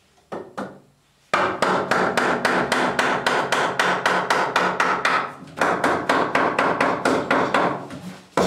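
Hammer tapping a tight-fitting timber noggin into place between wooden ceiling studs: two single taps, then a long run of rapid blows, about five or six a second, with a short break about five and a half seconds in.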